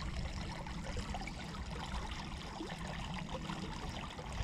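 Shallow stream running steadily over gravel, with a low rumble underneath.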